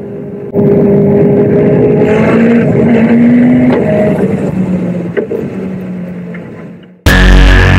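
Caterham 7 engine heard onboard on track, accelerating with its pitch rising, then fading out. Loud electronic music cuts in near the end.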